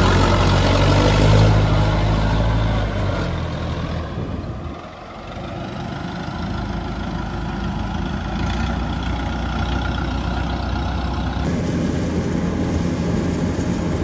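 Small rice harvester's engine running steadily, loud at first and then fading over the next few seconds as the machine moves away. About eleven seconds in, the sound changes abruptly to another harvester engine running steadily.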